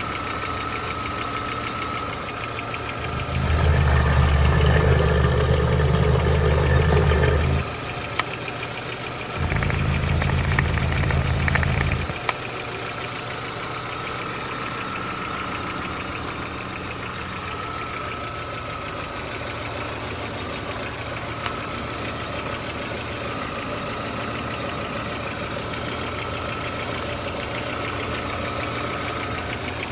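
Volkswagen Passat B4 engine idling with a fast, even knocking that the owner isn't sure is normal. It is revved up and held twice, for about four seconds starting a few seconds in and for about two seconds around ten seconds in, then drops back to idle.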